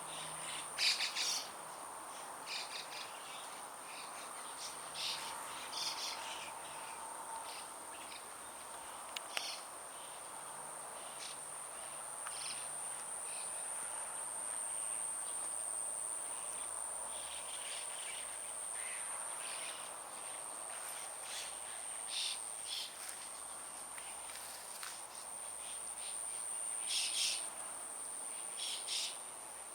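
Small songbirds giving short chirps at irregular intervals over a steady, high-pitched insect drone.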